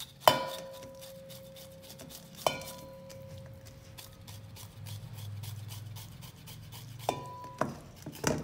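Skin being scraped off a cow tongue in a metal bowl, a rough rasping stroke after stroke. The scraping knocks the bowl sharply four times, about a quarter second and two and a half seconds in and twice close together near the end; the bowl rings on for a couple of seconds after the first two.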